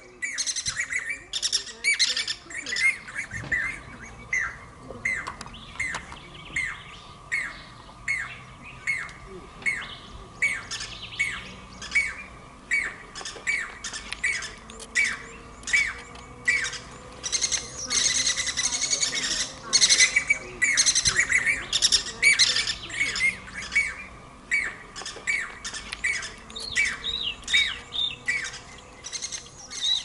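Birds calling: short, sharp calls repeated steadily about twice a second, with a louder stretch of calls crowding together a little past the middle.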